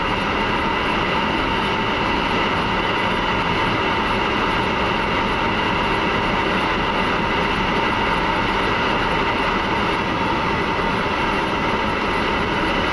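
Steady flight-deck noise of an Airbus A300-600 in flight: an even rush of airflow and air conditioning with a few faint steady whining tones, unchanging throughout.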